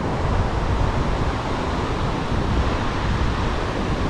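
Surf breaking on a sandy beach, a steady wash of noise, with wind buffeting the microphone.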